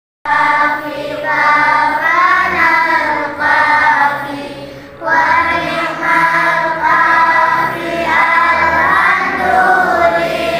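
A group of children singing together with music behind them, the song breaking off briefly about halfway through.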